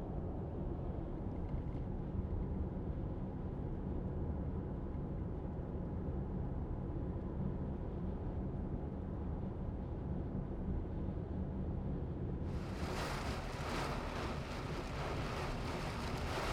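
Severe-storm wind: a steady low rumble, then about three-quarters of the way through a strong gust arrives with a sudden rush of hissing, buffeting wind noise on the microphone.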